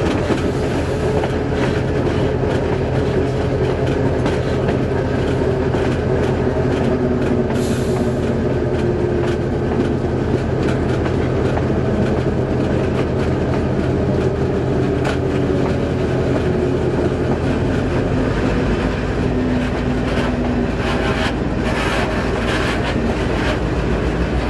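Diesel locomotive running steadily down the track, heard from its outside walkway: an even low engine drone with the rumble and clatter of wheels on the rails.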